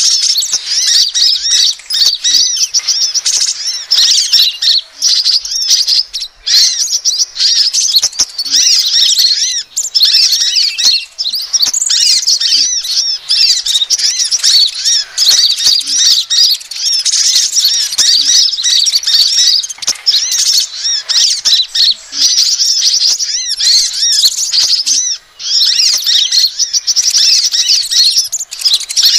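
Sunbird lure call recording, for van Hasselt's sunbird (kolibri ninja) and crimson sunbird (sepah raja): a loud, unbroken stream of high-pitched chirps and fast twittering trills, many calls overlapping, with only a few brief breaks.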